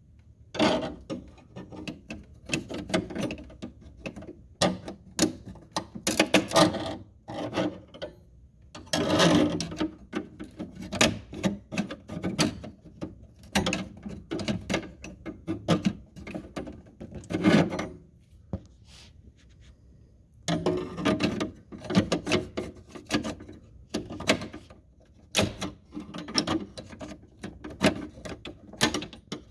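Butter knife scraping and tapping at a jammed ice cube and frost on the white plastic harvest fingers of a Samsung freezer ice maker, clearing the jam that stops it making ice. The scrapes and knocks come in irregular runs, with a few short pauses.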